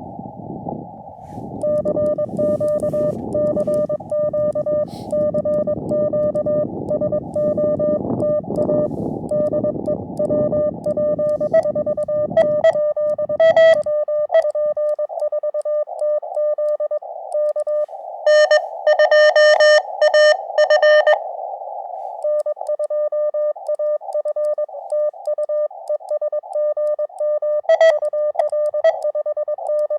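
Morse code (CW) tones from a ham radio transceiver: a steady note of about 600 Hz keyed in dots and dashes. For the first half it is heard over a band of hiss from the receiver's narrow filter. After that the note is clean with no hiss, as the sidetone of the operator's own sending would be, and it is louder and brighter for a few seconds around twenty seconds in.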